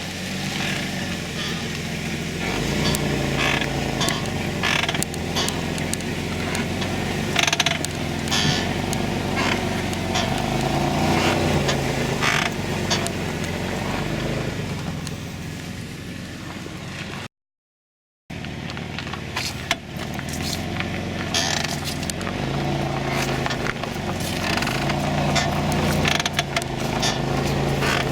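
2008 Caravan minivan running, its engine note rising and falling, with repeated scraping and clicking from the rear drum brake. The sound drops out completely for about a second, around two-thirds of the way through.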